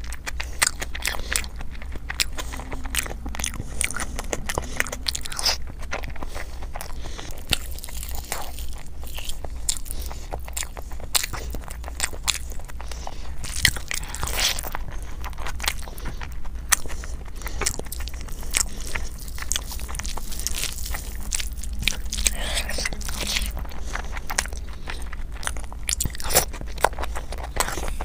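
Close-miked eating: a mouth chewing big handfuls of biryani rice, with many sharp crunches and wet mouth clicks, and fingers squelching through curry and rice. A steady low hum runs underneath.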